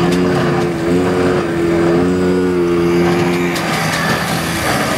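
An engine or motor running with a steady hum that steps slightly up and down in pitch, over a constant rumble. The hum drops away after about three and a half seconds and comes back faintly near the end.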